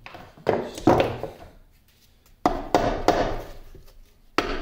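A mallet knocking on the cast-iron quick-change gearbox of a 1950 LeBlond Regal lathe: about six sharp blows in uneven groups. It is percussive work to free seized parts clogged with old grime and rust.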